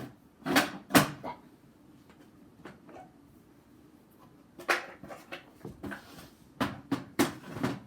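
Hard knocks and clunks of a humidifier's plastic parts being handled and set in place. There are two or three near the start, a pause, then a quicker run of knocks in the second half.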